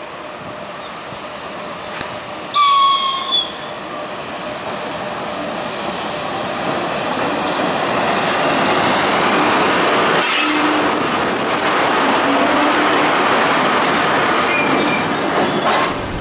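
EP1 electric locomotive heard from the cab: one short horn blast about two and a half seconds in, then the rumble of the train running over the points grows louder, with wheels squealing at times.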